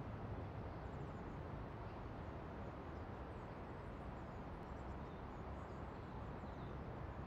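Outdoor ambience: a steady low rumble with faint, high bird chirps now and then.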